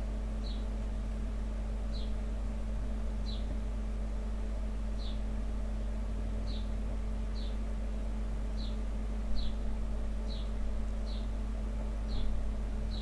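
Steady low electrical hum and hiss of room and microphone background, with short high falling chirps repeating about once a second. Two brief louder sounds come in the last few seconds.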